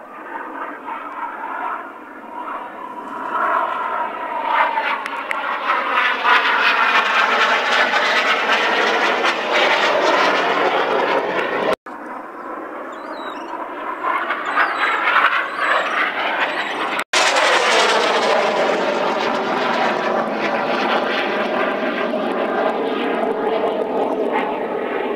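Red Arrows BAE Hawk T1 jets flying past: the jet noise swells to a loud pass with a sweeping, wavering whoosh. It breaks off abruptly twice, and a last loud pass slowly fades near the end.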